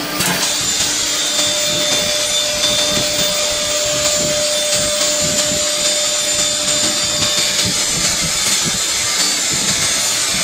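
Blue Elephant 1928 nesting CNC router running: its spindle gives a steady high whine that sets in just after the start, over a steady rush of machine noise, as the head moves across the board toward the edge. A lower steady hum joins for a few seconds in the middle.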